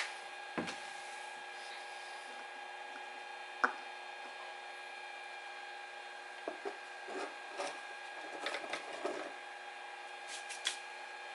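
Scattered light clicks, taps and rubbing of the generator's plastic oil fill cap and dipstick being handled while the oil level is checked, over a faint steady hum of several tones.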